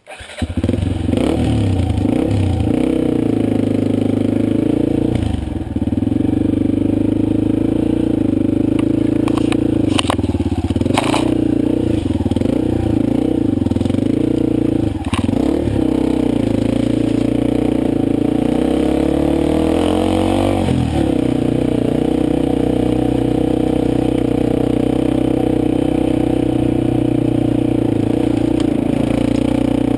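Motorcycle engine heard from on the bike while riding, its pitch dipping and rising several times with the throttle, with clattering and a couple of sharp knocks about ten seconds in.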